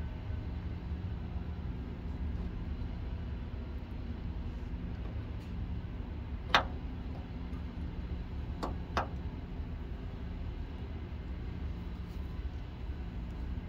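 Clicks from the steering-gear pinion being test-fitted into the rack: one sharp click about halfway through, then two quicker clicks about two seconds later, over a steady low rumble.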